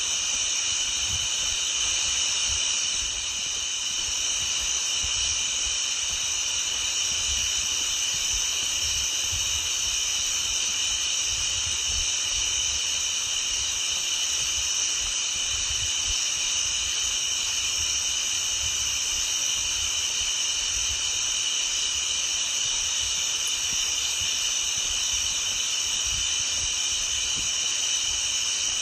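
A steady, high-pitched chorus of calling frogs, unbroken throughout. Irregular low rumbles from walking with the phone sit underneath.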